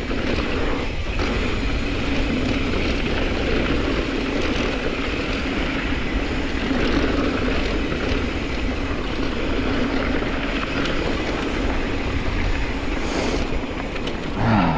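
A 2021 Ibis Mojo HD5 mountain bike being ridden fast downhill on a rocky dirt singletrack: a steady rush of wind on the mic mixed with tyres rolling over dirt and rock and the bike rattling. A short voice sound comes near the end.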